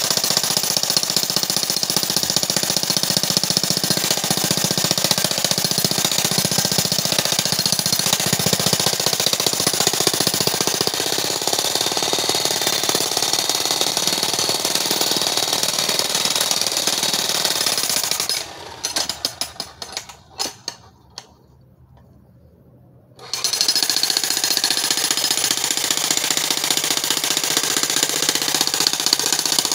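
Corded electric jackhammer breaking rock, a rapid, steady hammering. About eighteen seconds in it stops and stutters in a few short bursts, goes quiet for about two seconds, then starts hammering again.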